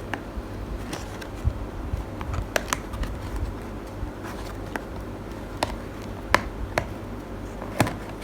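Scattered sharp clicks and taps of tableware and dessert packaging being handled, clustered from about two and a half seconds in with the loudest near the end, over a steady low hum.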